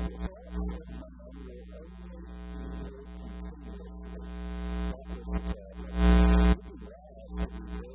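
Steady electrical mains hum, with fainter wavering tones over it and a louder half-second burst about six seconds in.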